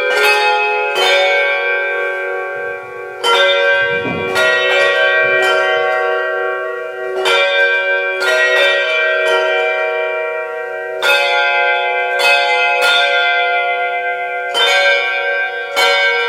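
A handbell choir playing a carol: hand-held bells struck one after another in a slow tune, about a note a second, each bell ringing on and overlapping the next.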